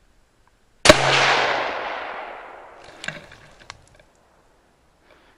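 A single rifle shot about a second in, its report rolling away and fading over about two seconds; two faint clicks follow.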